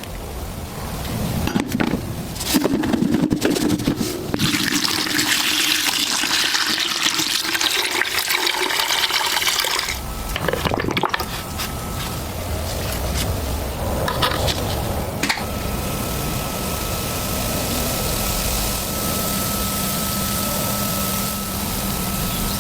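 Water running and splashing, with a strong hiss for several seconds in the first half, then a steadier, lower rush.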